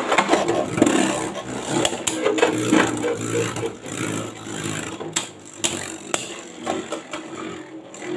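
Two Beyblade Burst spinning tops whirring and rattling around a plastic stadium, with sharp clicks as they strike each other and the wall. The clicks are thickest right after the launch and come again in a short run about five seconds in, while the whirring slowly fades.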